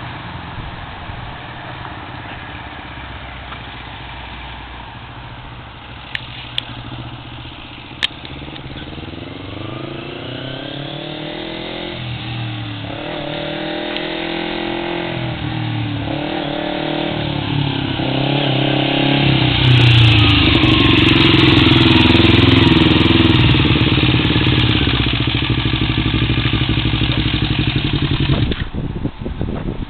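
Kawasaki motorcycle engine ridden in first gear, revving up again and again and growing louder as it comes closer. It runs loudest close by, then drops away abruptly just before the end.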